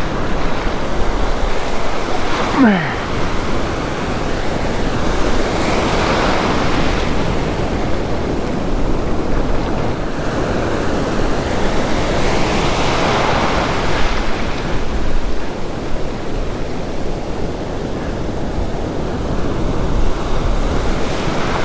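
Ocean surf breaking and washing up a beach in a heavy swell, rising and falling in slow surges. A short falling whistle sounds about two and a half seconds in.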